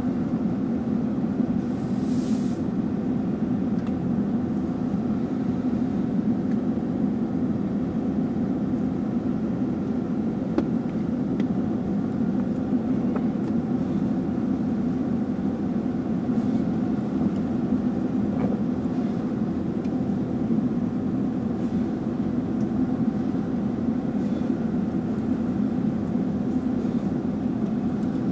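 Excavator's diesel engine idling steadily, heard from inside the cab, with a brief hiss about two seconds in.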